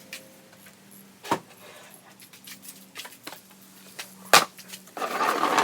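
Metal tools and parts handled during motorcycle fork disassembly: two sharp metallic clinks a few seconds apart, then a short burst of rattling near the end.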